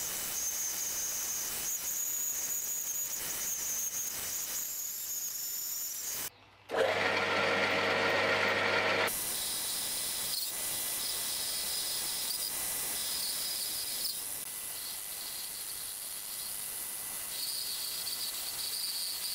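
Metal lathe running while a cutting tool turns a steel roller, a steady hiss with a high thin whine that comes and goes. About six seconds in the sound breaks off briefly and comes back louder and fuller for a couple of seconds before settling back to the steady hiss.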